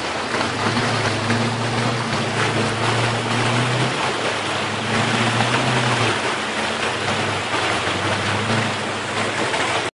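A truck's engine running with a low hum that drops in and out, under a loud, steady rushing noise.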